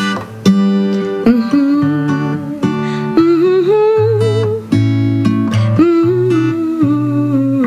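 Acoustic guitar strumming chords as a song's instrumental intro, with a wordless, wavering melody line held over the chords.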